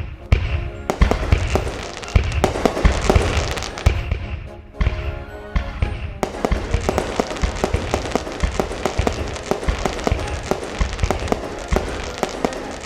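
Fireworks going off in rapid succession, a dense run of bangs and crackling with deep thumps, over background music.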